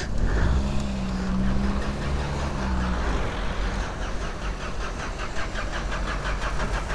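Motor vehicle engine running: a steady hum for the first few seconds, then a fast, even pulsing.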